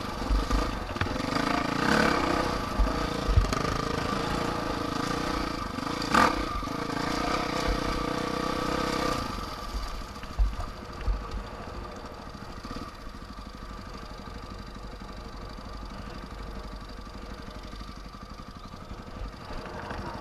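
Vehicle engine running steadily on an off-road ride, with a few sharp knocks and thumps over it. About nine seconds in it drops to a quieter, steady running sound.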